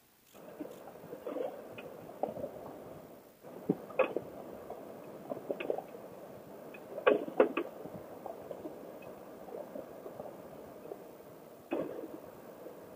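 Honda NC700XD motorcycle riding along a dirt and gravel road: a steady running drone with frequent sharp knocks and clatter from stones and bumps, the loudest cluster about seven seconds in.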